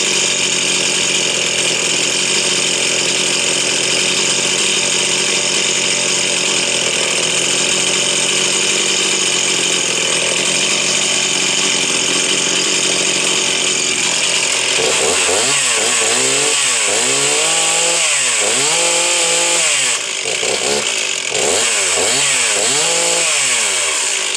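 Stihl 036 two-stroke chainsaw running at high revs steadily for about fourteen seconds, then revved up and down over and over, about once a second, before it stops abruptly near the end.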